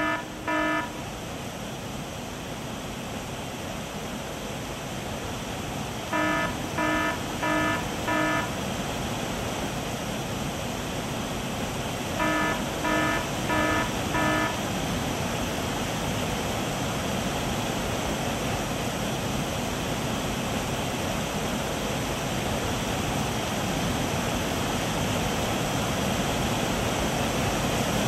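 A high-water alarm beeps in groups of four, about two buzzy beeps a second. One group is ending at the start, and others come about 6 and 12 seconds in. Under it runs a steady rush of heavy rain that grows louder throughout.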